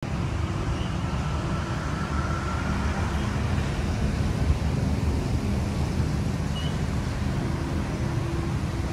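A motor vehicle engine running at a steady speed, a low even rumble, with traffic noise around it.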